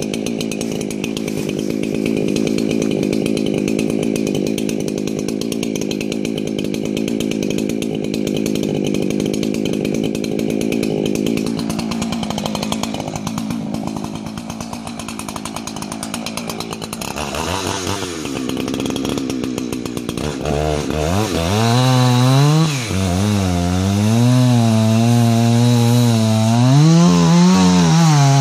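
Two-stroke chainsaw running and cutting into a large ponderosa pine trunk. Steady for the first part, then from about two-thirds of the way in its engine pitch rises and falls again and again as the load on the chain changes.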